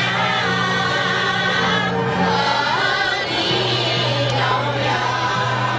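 A large group of Miao women singing together in chorus, many voices wavering on long notes, over a steady low droning tone that shifts pitch about halfway through.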